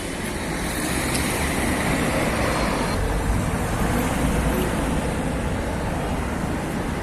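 City street traffic: passing cars and engines making a steady rumble and tyre noise, with no single event standing out.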